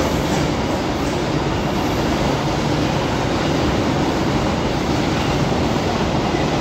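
Container freight train passing close by, its flat wagons rolling past in a steady, loud, unbroken rumble.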